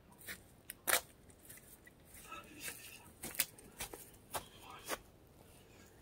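Faint, scattered knocks, clicks and light scrapes, with one louder knock about a second in.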